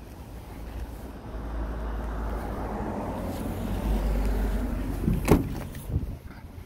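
A vehicle passing, its noise swelling and then easing off, followed by a sharp click of the truck's cab door latch a little after five seconds in and a softer knock as the door swings open.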